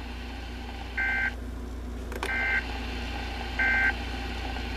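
Emergency Alert System end-of-message signal on NOAA Weather Radio: three short bursts of two-tone digital data, about a second apart, marking the close of the severe thunderstorm warning. A steady hum and hiss from the radio lies under them.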